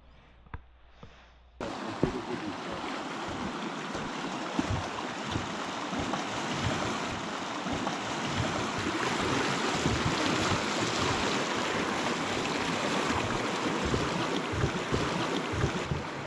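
Rushing water of a fast-flowing creek, with wind buffeting the microphone in low, irregular gusts. It starts abruptly about a second and a half in, after a few faint clicks in a quiet room.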